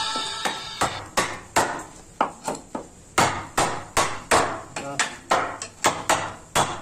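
Steel pipe hammering the metal-capped handle of a wood chisel driven into a wooden plank, sharp blows at an even pace of about three a second.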